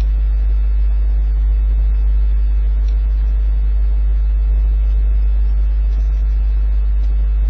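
Steady low electrical hum, mains hum picked up by the recording setup, over a faint hiss.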